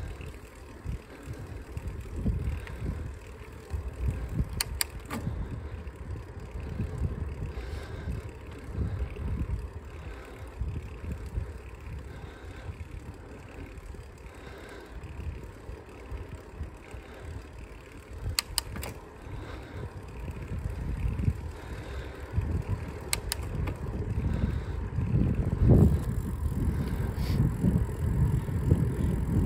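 Bicycle riding along an asphalt street: wind buffeting the microphone and the low rumble of the tyres on the road, getting louder in the last few seconds.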